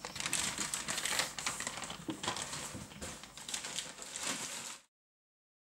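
Packaging being crumpled and handled by hand: a dense crinkling rustle that cuts off suddenly near the end.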